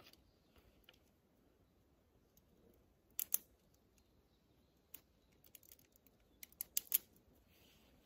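Sharp small clicks from hands handling small things by the fire pit: a pair about three seconds in, one near five seconds, and a quick run of about five near the end.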